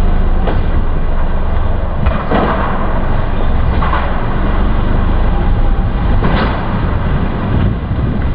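Polaris RZR S side-by-side's engine running steadily as it crawls over rock ledges, with several sharp clunks from the chassis and suspension striking rock, the loudest about two seconds in and again about six seconds in.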